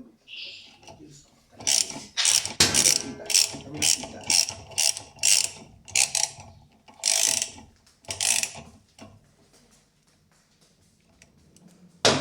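Socket ratchet wrench with a 7/16-inch socket ratcheting in a run of about a dozen short strokes, roughly two a second, then stopping. It is loosening the bolt that holds the agitator of a Whirlpool washing machine.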